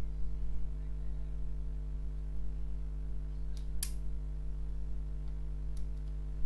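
Flush side cutters snipping the lead of a burnt resistor on a washing-machine circuit board: one sharp snap about four seconds in, with a few fainter clicks, over a steady low hum.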